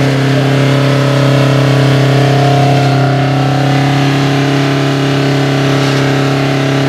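UAZ-469 off-roader's engine held at high, steady revs while its wheels spin in deep mud, the vehicle bogged down and barely moving.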